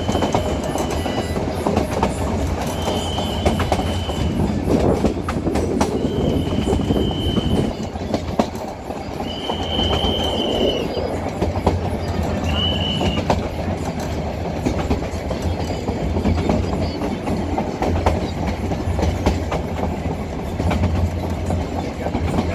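Metre-gauge passenger coaches running along the track, a steady rumble with wheels clattering over rail joints, heard from an open coach window. A high steady tone sounds five times in roughly the first thirteen seconds, each about a second long.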